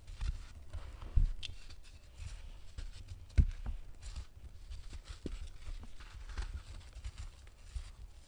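Dry sand-and-cement block crushed and crumbled by hand: gritty crunching and crackling with falling sand pattering. Two sharper, louder crunches come about a second in and a little past three seconds.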